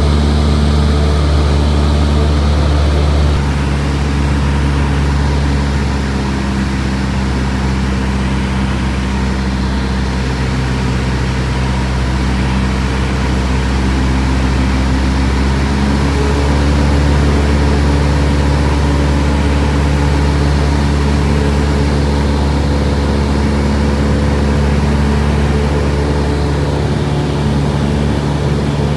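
Small aircraft's engine and propeller droning steadily, heard from inside the cabin, a low hum with several even tones above it. The tone shifts slightly a few seconds in and again about halfway through.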